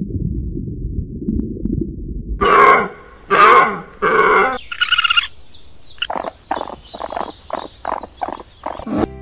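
A sequence of animal calls: a low grunting rumble, then three loud harsh calls about two seconds in, a brief high whistled call, and a run of short repeated calls.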